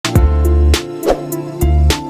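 Background music with a steady beat, deep bass notes and sharp percussion hits.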